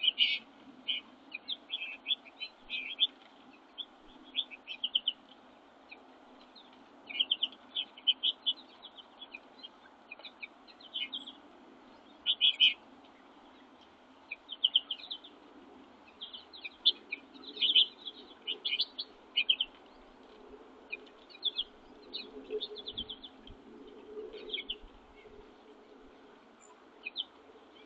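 Small songbirds at a feeder giving short, high chirps, singly and in quick runs, over and over throughout, with a faint steady background hum.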